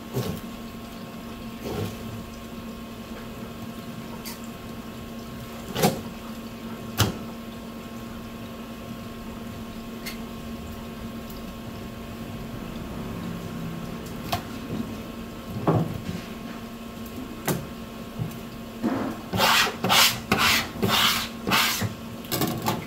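Filleting knife working through a large olive flounder on a plastic cutting board: quiet slicing with a few sharp knocks of blade or fish on the board, over a steady electrical hum. Near the end comes a quick run of loud rubbing and scraping strokes on the board.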